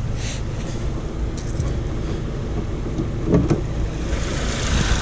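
The Ford Mustang EcoBoost's 2.3-litre turbocharged four-cylinder idles with a steady low rumble. A few light clicks come about one and a half seconds in, and a thump about three and a half seconds in.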